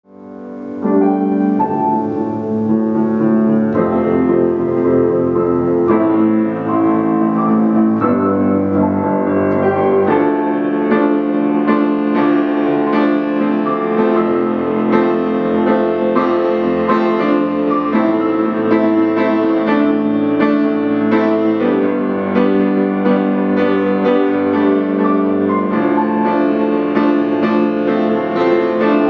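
Piano music: held chords that change every couple of seconds, fading in over the first second.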